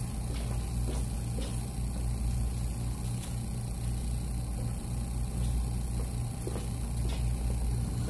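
Hot air rework station's blower running: a steady low drone that does not change.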